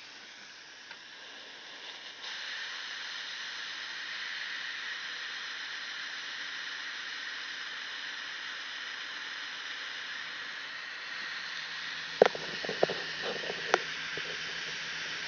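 Steady airy hiss of a hot-air rework station blowing onto the board to reflow a surface-mount controller chip, getting louder about two seconds in. A few sharp ticks stand out near the end.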